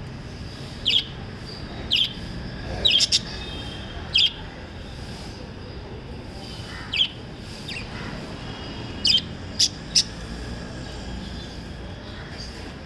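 Small pet parrots giving short, sharp chirps: about nine scattered calls, some in quick pairs, over a steady low background hiss.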